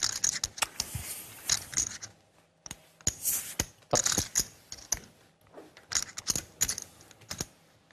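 Poker chips clicking and clattering at the table, an irregular run of sharp clicks with a couple of brief rattling flurries.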